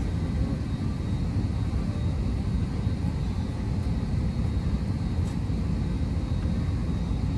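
Airliner cabin noise: a steady low rumble with a hiss above it.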